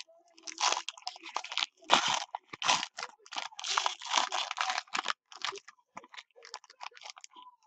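Foil wrapper of a 2015 Panini Spectra football card pack being torn open and crumpled in the hands. The crackling is dense for the first few seconds, then thins to fainter, short crackles.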